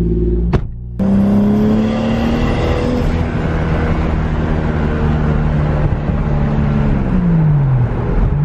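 Mk4 Toyota Supra's 2JZ straight-six running under way, heard from inside the cabin. After a short break about a second in, its note rises a little, holds steady, and then falls away near the end as the revs drop.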